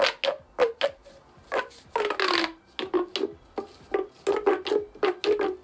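Flexible corrugated plastic drain pipe being stretched and squashed like an accordion, giving a quick run of crackling clicks and short creaks as its ribs open and close.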